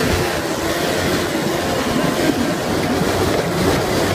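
Quad bike (ATV) engine running steadily as the quad is ridden over a dirt field.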